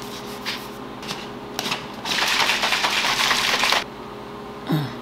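A few light plastic clicks, then a plastic shaker bottle shaken hard for nearly two seconds, mixing a pre-workout drink.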